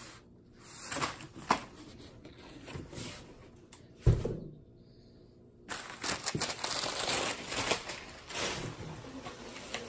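Crumpled newspaper and plastic bubble-wrap packing being handled and scrunched, crinkling and rustling, with one low thump about four seconds in. The crinkling gets dense and continuous for the last few seconds.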